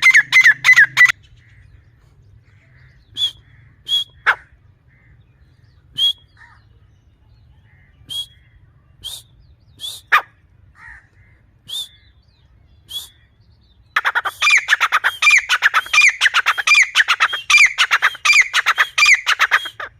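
Grey francolin (teetar) calling: a fast series of loud, ringing repeated notes cuts off about a second in, then scattered single short calls, and from about two-thirds of the way through another fast run of notes at roughly three a second.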